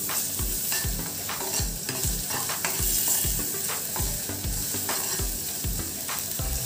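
Chopped garlic and ginger sizzling in a little hot oil in a nonstick kadhai, being sautéed while a spoon stirs and knocks against the pan about twice a second.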